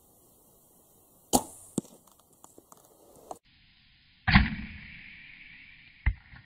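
A bow being shot with an arrow: a sharp snap about a second and a half in, then a louder snap about four seconds in that dies away over a second or two, and a sharp knock near the end.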